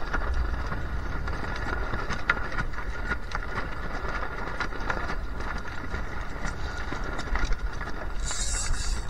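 A sailing dinghy running fast in strong wind: wind buffeting the microphone with a steady low rumble, and water rushing and ticking along the hull, with a brief hiss of spray near the end.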